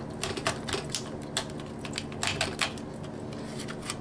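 Heavy cleaver cutting along the backbone of a raw whole chicken: a run of about eight sharp, irregular cracks as the blade breaks through the bones.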